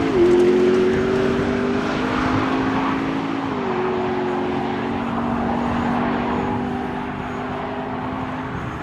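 Two supercars accelerating hard in a drag race, engine note climbing steadily and dropping with an upshift about a quarter-second in and again about three and a half seconds in, growing fainter as they pull away.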